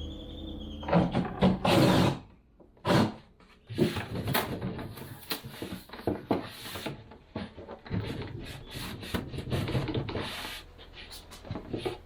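Wooden knocks, bumps and rubbing, as of boards or cabinet parts being handled and slid into place, in an irregular run with some sharper knocks in the first two seconds.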